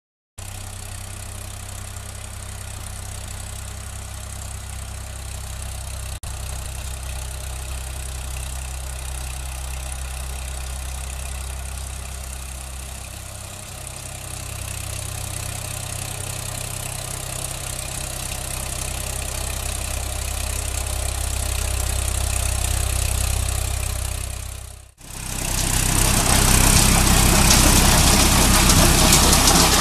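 Tractor engine running steadily while pulling a rotary tiller (rotavator) through soil, its level dipping briefly and then building. After a sudden cut about 25 s in, a louder, rougher close-up of the engine with the rotavator's blades tilling clods of soil.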